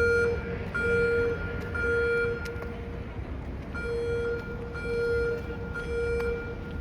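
Fire alarm speakers sounding a beeping tone in the temporal-three evacuation pattern: three half-second beeps, a pause of about a second and a half, then three more, over a low background rumble.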